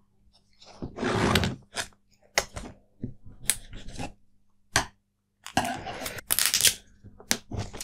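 A small cardboard retail box being handled and opened on a table: irregular scrapes, rustles and light taps of the packaging. There are longer rustles about a second in and again near the end, with short clicks and knocks between them.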